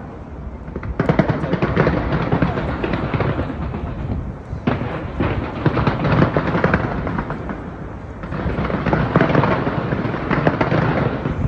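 Fireworks going off in dense, rapid crackling and popping. The sound comes in three swelling waves, starting about a second in, about four and a half seconds in, and about eight seconds in.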